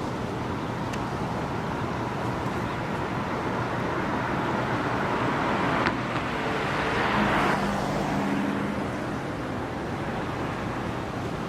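A car passing over the bridge, its tyre and engine noise swelling about halfway through and fading a couple of seconds later, over a steady outdoor hiss of wind and traffic.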